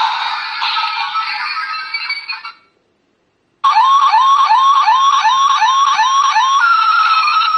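A diecast toy Jeep's built-in sound module playing through its tiny speaker: a tinny electronic jingle, a pause of about a second, then a fast electronic siren of rising chirps, about three a second, that turns into a steady tone near the end.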